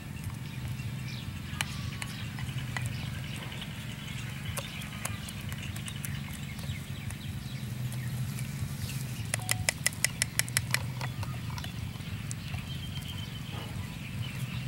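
Knife slicing banana on a plate: scattered small clicks, then a quick run of about ten sharp taps of the blade on the plate about nine seconds in, over a steady low hum.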